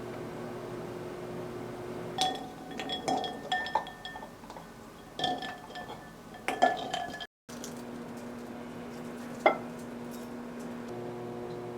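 Kitchenware clinking and knocking as it is handled, in three short clusters and then one sharp clink, over a steady low hum.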